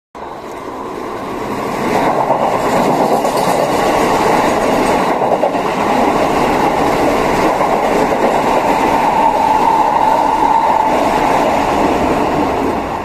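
Keikyu 1000-series (1890 subseries) electric train running through a station without stopping: the rush and clatter of its wheels and running gear builds over the first two seconds and stays loud and steady. A higher whine joins in briefly around ten seconds, and the sound eases off near the end as the train recedes.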